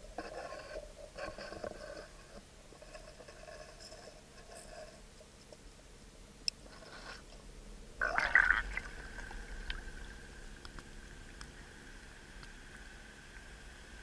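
Water heard through an action camera's waterproof housing in shallow sea water: muffled crackling and scattered clicks. About eight seconds in, a loud splashing rush as the camera breaks the surface, then a faint steady tone.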